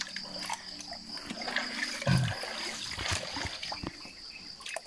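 Shallow stream water trickling and splashing as hands scoop water and scrub mud off a motorcycle's tyre, with a few soft knocks and splashes; a steady high-pitched hum runs underneath.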